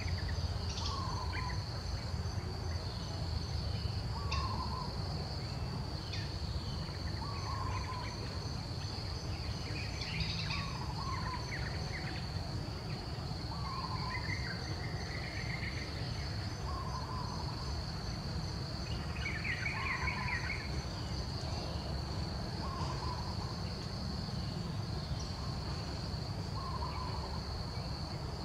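Steady high-pitched drone of insects such as crickets or cicadas, with a short call repeating about every two seconds and a few brief higher bird chirps, over a low background rumble.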